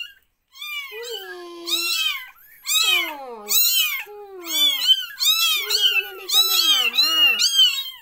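Young kittens meowing repeatedly in high cries that rise and fall in pitch; after about three seconds the calls come almost without pause and overlap, more than one kitten crying at once.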